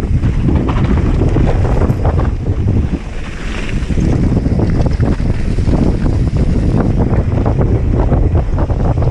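Wind buffeting a helmet- or chest-mounted action camera's microphone while a mountain bike descends a gravel trail at speed, over a steady clatter of tyres on loose gravel and rattling bike parts. The wind noise eases briefly about three seconds in.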